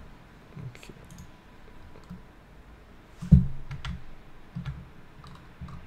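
Scattered clicks of a computer mouse and keyboard, about nine in all, each with a low thud; the loudest comes a little over three seconds in.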